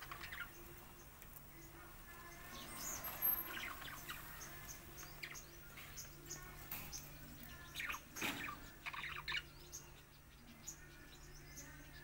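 Pet budgerigars chirping and chattering in short, scattered calls, with a stronger call about eight seconds in.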